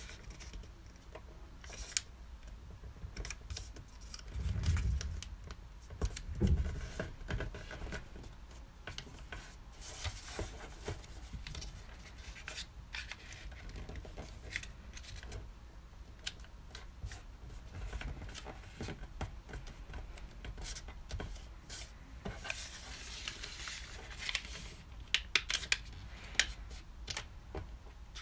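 A sheet of origami paper rustling and crinkling as it is handled and folded, with crisp clicks as creases are pressed flat against a wooden tabletop. Two soft low thumps come about four and six and a half seconds in.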